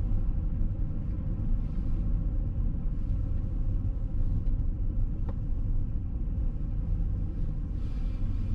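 A 2005 Jaguar S-Type 3.0 V6 driving at a steady pace, its engine and road noise making an even, low rumble. A short click sounds about five seconds in.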